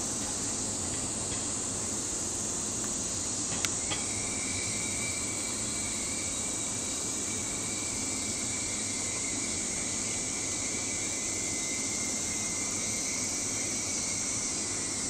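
Steady high-pitched drone of summer insects, most likely cicadas, with a low background rumble. A single sharp click comes about three and a half seconds in, followed by a thin steady high tone that runs until near the end.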